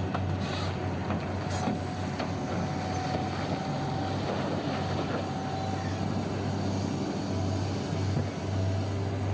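Heavy machinery diesel engine running steadily with a deep hum, with a few knocks in the first two seconds.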